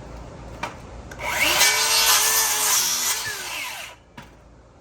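Electric saw cutting a wooden board: the motor spins up about a second in, cuts for nearly three seconds, then winds down.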